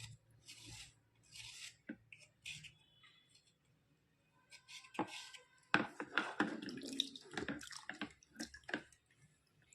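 White slate pencils being scraped in short strokes, about two a second, then a busier run of sharp clicks and crackling crunches from about five seconds in.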